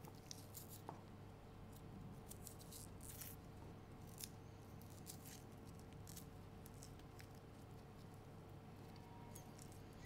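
Faint, scattered ticks and papery crackles of garlic cloves being peeled with a sharp knife and fingertips, over a quiet steady room hum.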